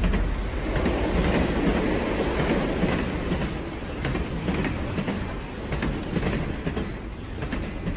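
A train running on rails, with repeated clicks from the wheels on the track, gradually getting quieter.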